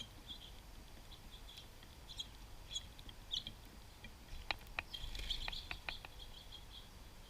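Small songbirds at a feeder giving short, high chirps and call notes over and over. A little past halfway comes a quick run of about six sharp clicks along with a brief rustling rush.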